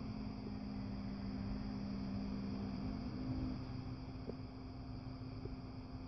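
Serta adjustable bed base's electric motors humming steadily as the head and foot sections lift; the hum shifts in pitch about three seconds in.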